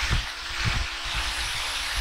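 A steady spraying hiss, with a few irregular low knocks from handling and a faint steady hum underneath.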